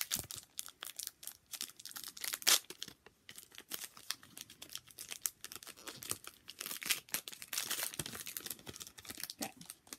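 Foil wrapper of a Magic: The Gathering booster pack being torn open by hand: dense crinkling and crackling throughout, with a louder crackle about two and a half seconds in.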